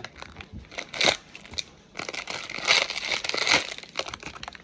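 Smiski blind-box packaging crinkling and tearing as it is opened by hand, with a burst of rustling from about two seconds in.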